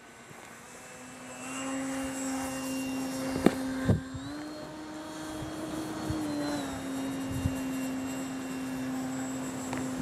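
Electric motor and propeller of a LiPo-powered RC plane running with a steady drone. It grows louder about a second in, steps up in pitch a little around four seconds in and drops back down near seven seconds, with the throttle. Two sharp knocks come close together shortly after three seconds in.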